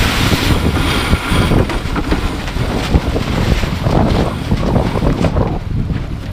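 Wind buffeting the microphone on a sailboat under sail: a steady gusty rumble, with a brighter rushing hiss in the first couple of seconds.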